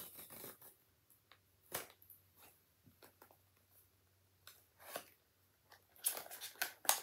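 Fingers and nails picking at and prying open the tucked flap of a small paperboard blind box: scattered soft scrapes and clicks, with denser rustling of paper near the end.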